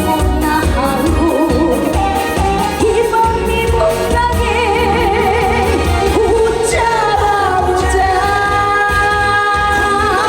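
Upbeat Korean trot song performed live: a woman's voice singing with vibrato over band accompaniment with a steady beat.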